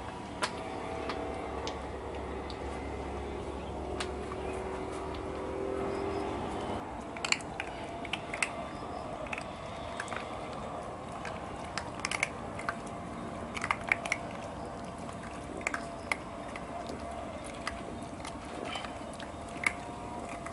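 Puppies crunching dry kibble off a concrete floor: scattered crunches and clicks from about seven seconds in. A steady low hum runs under the first six seconds and fades out.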